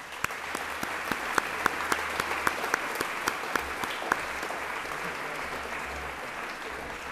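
Audience applauding, with one close pair of hands clapping about four times a second and standing out over the rest for the first four seconds.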